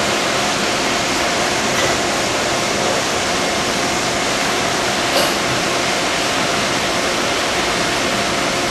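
VMC220L CNC vertical machining center cutting a bore in a cast housing with an end mill under flood coolant: a steady rushing hiss of coolant and cutting with a faint steady hum from the spindle. A short click sounds about five seconds in.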